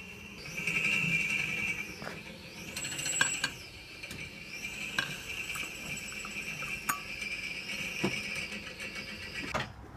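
A few sharp metallic clinks over a steady, high insect drone that wavers in pitch.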